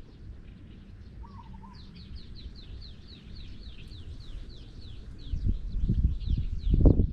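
A bird calling a fast run of short, falling high notes, about four a second, with a brief lower warble just before. Low rumbling knocks, most likely handling or movement noise, build toward the end, and the loudest comes just before it stops.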